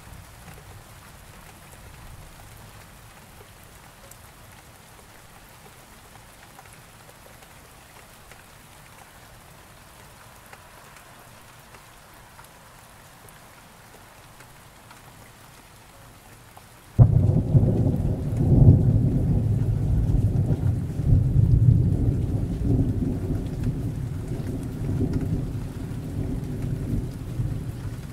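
Steady rain falling, then about two-thirds of the way in a loud low rumble of thunder breaks in suddenly and rolls on, slowly easing, to the end.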